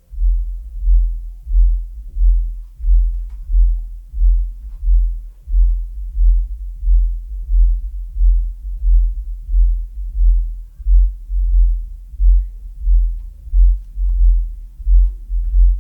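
Polk Audio PSW-10 subwoofer playing bass-heavy music: deep, regular bass pulses about one and a half times a second, with little sound above the low bass. It starts abruptly at the beginning.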